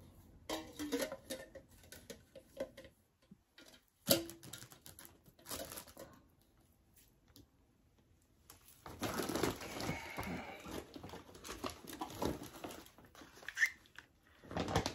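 Rustling and crinkling of a plastic shopping bag as items are pulled out of it and handled, with scattered light clicks and one sharp knock about four seconds in.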